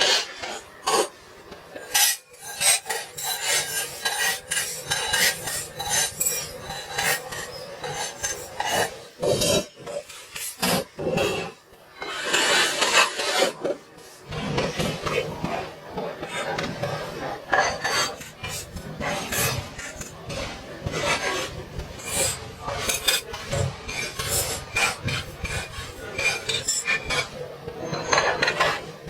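Hand work on automatic transmission parts: a run of sharp metallic clicks and knocks mixed with scraping and rubbing, with a longer stretch of scraping about twelve seconds in.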